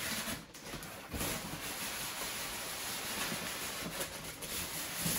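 Cardboard box packaging being handled, a steady rubbing and scraping as the box is slid and moved.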